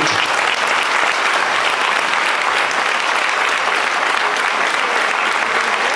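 Audience applauding: many people clapping together, breaking out as the speaker finishes and kept up steadily.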